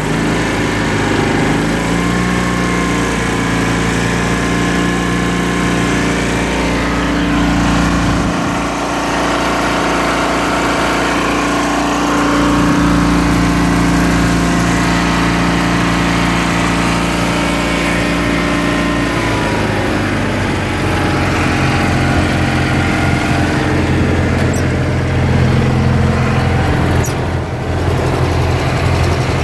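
Cast-iron Kohler K-series garden tractor engine running steadily. It picks up speed slightly about a second and a half in and settles back to a lower idle about two-thirds of the way through.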